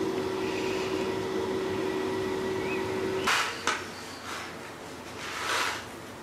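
A steady hum that stops about three seconds in, followed by rustling of a paper seed packet being handled: a rustle, a sharp click, and a longer rustle near the end.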